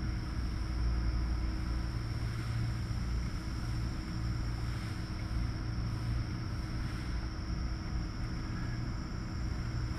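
Steady low mechanical drone of pig-barn machinery, with a faint high whine running over it.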